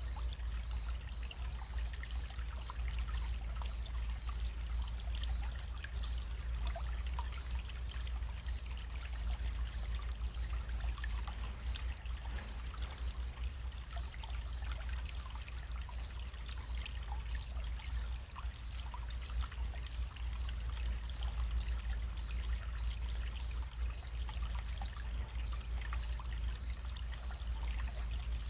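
Small stream running: a steady trickle and babble of water, with many small splashes flickering over a constant low rumble.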